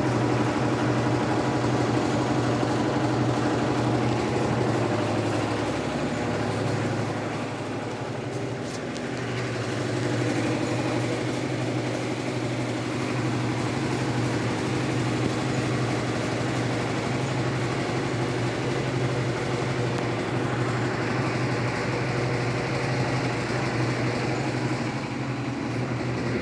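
Electrolux Turbo Economia LTE12 washing machine running with a steady motor hum. The hum dips and wavers briefly about seven seconds in, then settles again.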